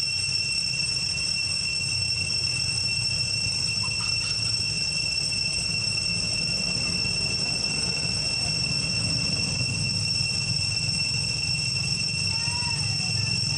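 Steady high-pitched drone of cicadas over a low rumble of wind on the microphone, with a few faint chirps near the end.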